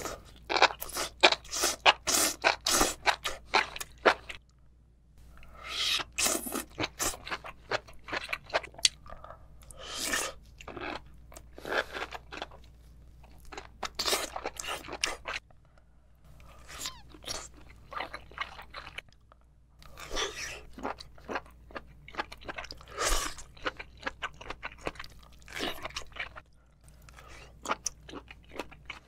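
Close-miked crunching and chewing of sauce-glazed mushrooms, enoki among them, in repeated bouts of crisp bites with short pauses between mouthfuls.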